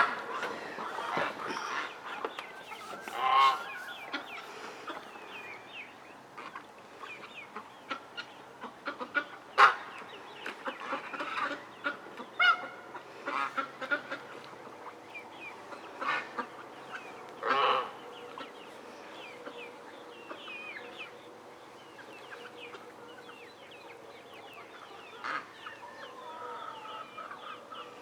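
A farmyard poultry flock calling: chickens clucking and young birds chirping in many short calls, with a few louder single calls now and then.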